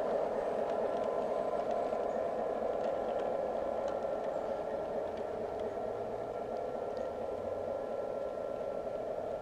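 Model train running on the layout track: a steady rumble of wheels and motor with a thin, steady motor whine and occasional faint clicks.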